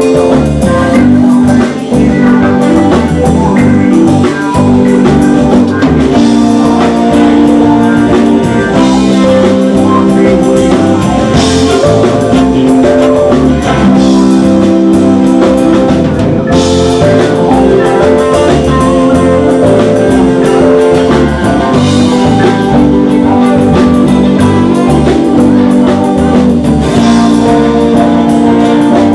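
A band playing an instrumental rock passage, with guitar over a steady drum kit beat.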